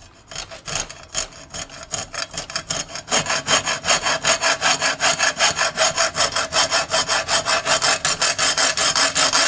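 Hacksaw cutting through a high-pressure power steering hose that has metal mesh inside, in quick, even back-and-forth strokes. It starts light and becomes louder and steadier about three seconds in.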